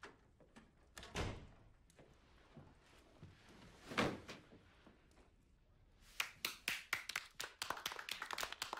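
Two soft thuds nearly three seconds apart, then from about six seconds in, a few people clapping politely.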